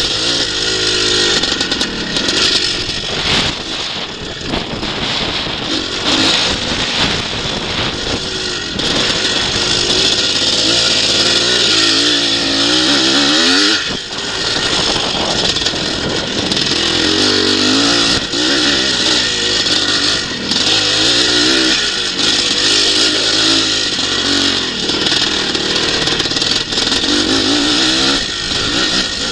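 Twinshock motocross bike engine revving hard on a dirt track, pitch climbing and falling again and again through throttle and gear changes, with a short lift-off and pick-up about halfway through. Heard from a camera on the bike or rider.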